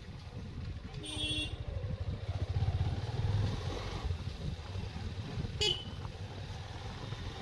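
Honda motorcycle engine running at low road speed, with a short horn beep about a second in and a brief second toot later.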